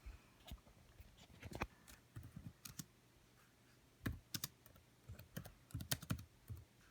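Faint typing on a computer keyboard: irregular key clicks in short runs.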